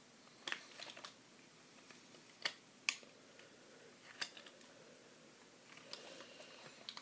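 Toy packaging being handled: a scattering of sharp plastic clicks and taps, the loudest two about two and a half and three seconds in, with a faint rustle near the end.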